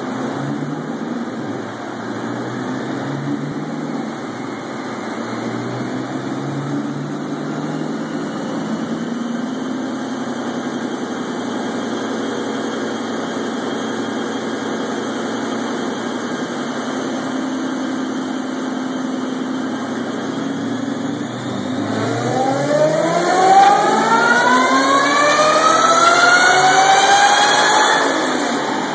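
2004 Mustang SVT Cobra's supercharged 4.6-litre V8 on a chassis dyno, running steadily at low revs, then about three quarters of the way in a wide-open-throttle dyno pull: the engine note rises steadily in pitch and gets louder for about six seconds, then drops off as the throttle is lifted near the end.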